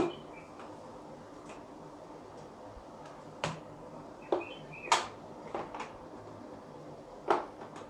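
Scattered sharp taps and clicks, about seven of them, from a whiteboard marker knocking against the board and its tray while table lines are drawn, over a faint steady hum.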